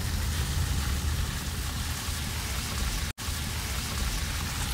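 Car driving, with wind and road noise coming in through the open side window: a steady hiss over a deep, unsteady rumble. The sound drops out for an instant about three seconds in.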